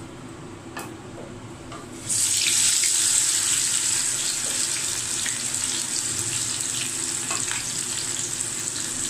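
Beef chapli kabab patty sizzling in hot oil in a frying pan as it starts to fry. The sizzle starts suddenly about two seconds in and carries on as a steady hiss with scattered crackles.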